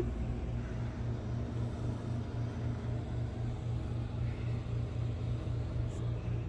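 Kitten purring close to the microphone while being petted: a low, steady, throbbing rumble.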